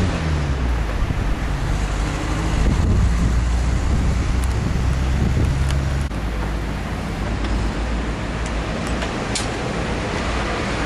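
Steady street traffic noise with wind rumbling on the microphone. The level drops suddenly about six seconds in, and a few faint clicks follow.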